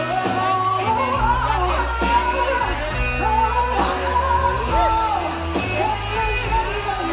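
Live performance of a slow blues song, with slide guitar lines gliding and bending in pitch over a steady low bass.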